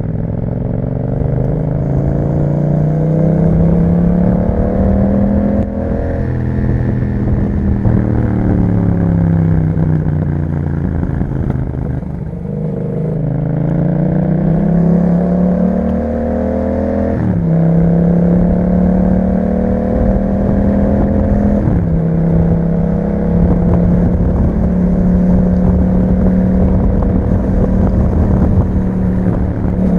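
The parallel-twin engine of a 2021 Yamaha MT-07 running through an aftermarket Akrapovic exhaust while riding. The revs climb, ease off and climb again, then drop sharply on an upshift a little past halfway. After a further shift the engine holds steady at cruising revs.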